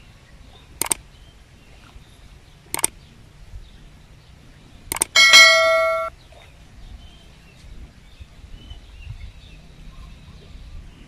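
Subscribe-button sound effect: three clicks spread over about four seconds, the last followed at once by a bright bell-like notification chime that rings for about a second.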